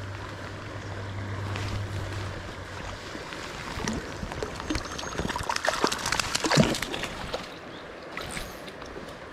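Stream water running over riffles, with a hooked rainbow trout thrashing and splashing at the surface as it is brought into the landing net: a flurry of splashes between about four and seven seconds in.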